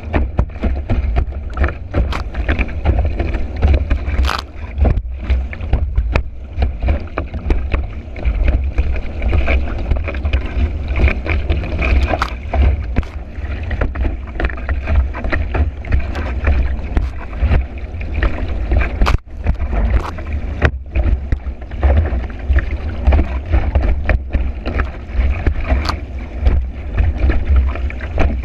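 A kiteboard planing fast across choppy water, heard from a camera mounted on the board: a continuous rush of water with a heavy low rumble of wind buffeting the microphone, and frequent sharp knocks as the board slaps over the chop.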